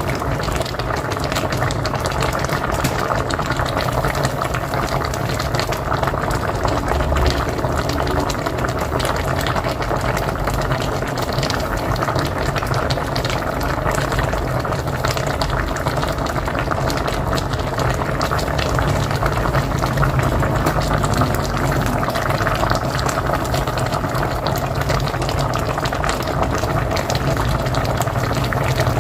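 A pot of mocotó (cow's-foot broth) boiling on a wood-fired stove: steady, dense bubbling that does not let up.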